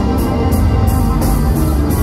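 A live band playing loud instrumental guitar fusion: electric guitars over bass guitar and drums, with cymbal hits, played through a concert PA.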